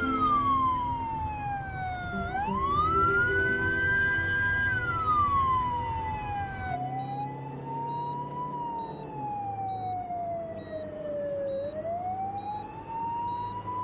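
Ambulance siren wailing, its pitch sweeping slowly up and down, over a low rumble for the first seven seconds. After that a short high beep repeats about once a second.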